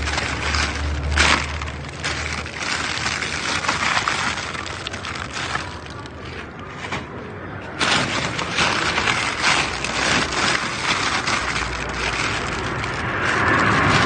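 Plastic bags and packaging rustling and crinkling as a gloved hand rummages through trash in a dumpster, quieter for a moment a little past the middle.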